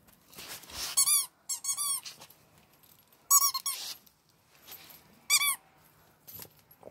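Rubber squeaky dog ball squeaking as the dogs bite and mouth it: a quick run of short squeaks in the first two seconds, another pair about three and a half seconds in and one more near five and a half seconds. Each squeak rises and falls in pitch.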